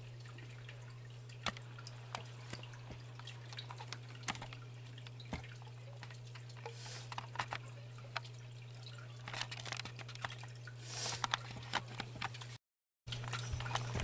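Aquarium filter running: a steady low hum with water trickling and dripping into the tank, and scattered small drips and clicks. The sound drops out for a moment near the end.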